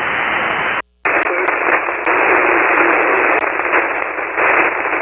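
Ham radio receiver on 40-metre SSB giving out a steady band-limited hiss of band noise, the distant station lost under it in poor, storm-disturbed conditions. The hiss cuts out completely for a moment about a second in.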